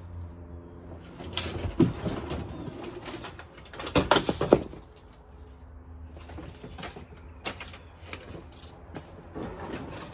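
Knocks and clattering of stored items being shifted about by hand, loudest about two seconds in and again around four seconds in, over a steady low hum.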